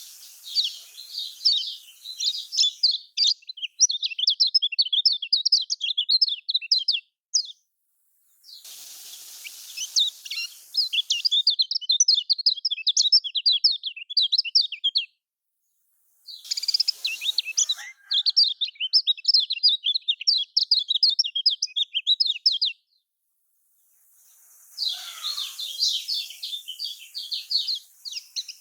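Kecial kuning, a white-eye, singing a fast, dense twittering song of high chirps in four bouts of about six seconds each, with short silent gaps between them. The recording is used as a lure song to get a reluctant kecial kuning singing.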